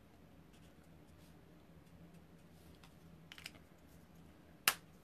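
Quiet ticks and taps of alcohol markers being handled while colouring on card stock, with a few clicks about three and a half seconds in and one sharp click just before the end.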